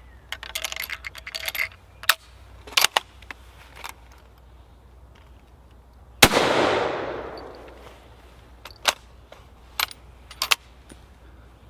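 Metallic clicks and rattles of 6.5x55 cartridges being loaded into a Krag-Jørgensen carbine, then a single loud rifle shot about six seconds in that echoes for about a second and a half. A few sharp clicks of the bolt being worked follow near the end.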